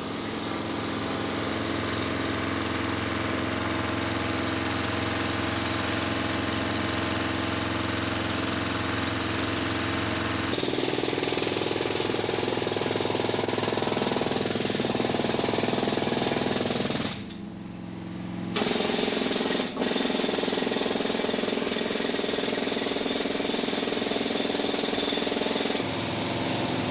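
Air compressor engine running steadily, powering a pneumatic jackhammer that digs through heavy earth and stone at the bottom of a hand-dug well. The sound shifts abruptly about ten seconds in and drops away briefly about two-thirds of the way through.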